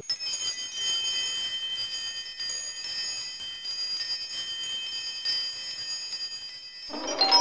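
Twinkling, bell-like chime tones: a steady shimmer of several high ringing notes, with a louder cluster of lower chime notes coming in near the end, as in an intro jingle.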